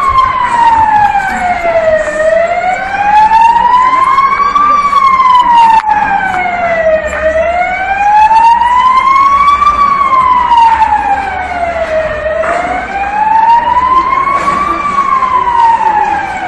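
Emergency vehicle siren in a slow wail, loud, its pitch rising and falling steadily with one full rise and fall about every five seconds.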